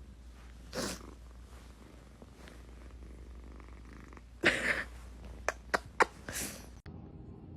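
A cat purring steadily, with a few brief louder noises and three sharp clicks between five and six seconds in. The sound cuts off abruptly shortly before the end.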